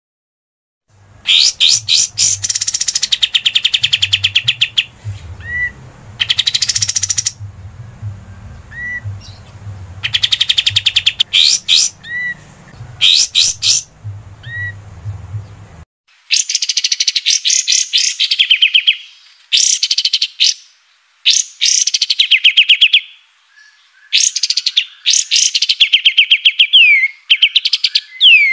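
Kapas tembak songbird singing in repeated bursts of fast, rattling chatter. A low hum runs under the first half and cuts off abruptly about halfway, where one recording ends and another begins.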